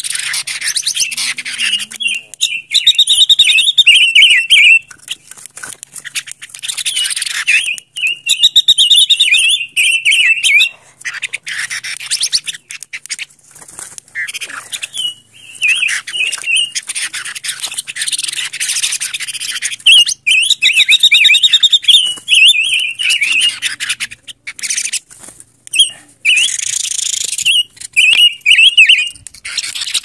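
Silver-eared mesia singing: repeated bursts of quick, rippling warbled phrases a few seconds apart, over a hissy, crackly background.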